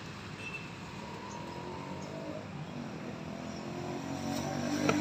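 A motor vehicle engine approaching along the road, growing louder toward the end, over a steady outdoor background hum.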